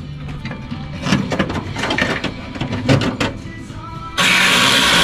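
Background music, then about four seconds in an angle grinder starts cutting metal: a loud, steady grinding hiss.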